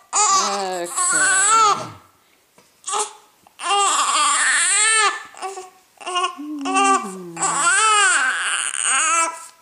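Young infant fussing with squeaky, high-pitched cries that rise and fall in pitch, in three long runs with short squeaks between them.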